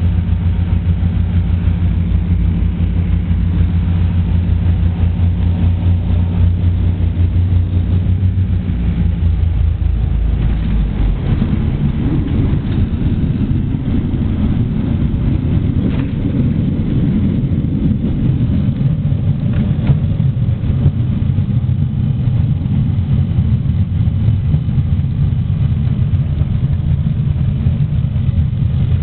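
Cabin noise of a Britten-Norman Islander's twin piston engines, a steady drone at first; about ten seconds in the engines are throttled back and the drone gives way to a rougher low rumble as the plane rolls along the runway.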